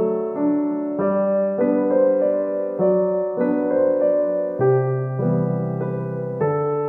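Background piano music: gentle sustained notes and chords, changing about every half second to a second.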